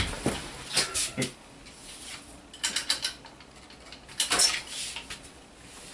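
Clicks and creaks of a desk chair as a person gets up, then scattered knocks and rustles as he moves about the room and handles things, with a louder rustle a little after four seconds.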